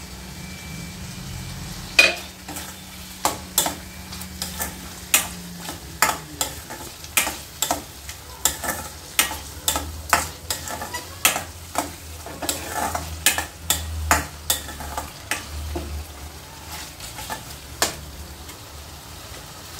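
A steel spoon stirring mutton in a stainless-steel kadai, clinking and scraping against the pan about twice a second from about two seconds in, over a low sizzle of the meat frying in oil.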